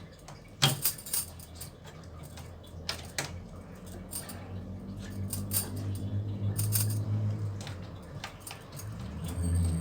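Scattered plastic clicks and knocks as the drain-pump filter cap and bottom access cover of a front-load washing machine are refitted and closed, with a low hum underneath in the second half.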